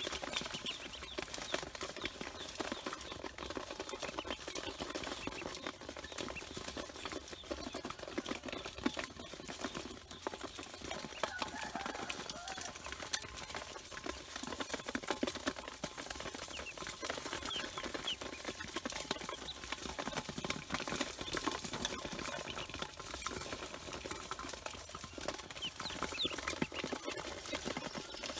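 A crowd of ducklings peeping in short rising calls while their bills and feet scrabble and peck at feed on the floor of a tub, a dense, unbroken stream of small taps and clicks.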